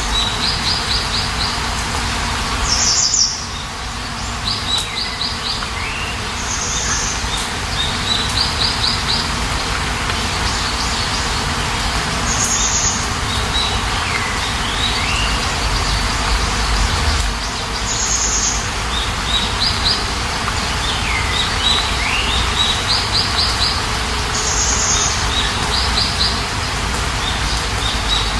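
Steady rain hiss with a songbird singing over it: a high chirp, a quick series of trilled notes and a dipping whistle, the same phrase recurring every several seconds.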